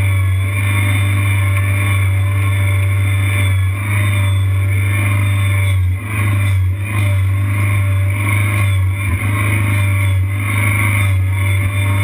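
Kanga Kid tracked mini skid steer's engine running steadily, heard close up from on the machine, with a brief dip about halfway through.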